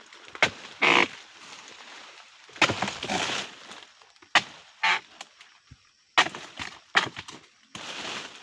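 Sharp chopping knocks at irregular spacing, with longer rustling crashes between them, as of a blade cutting into oil palm fronds or stalks.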